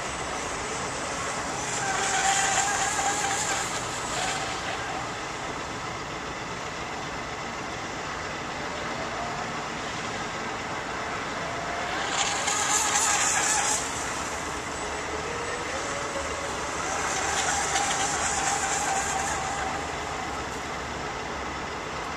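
Small boat's motor running as it moves across the water, a whine that glides up and down in pitch, with three louder surges of hiss about two, twelve and seventeen seconds in.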